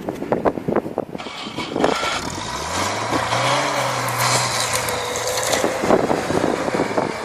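An engine speeds up over about a second, then runs at a steady pitch for a few seconds over a rushing noise, after several sharp knocks near the start.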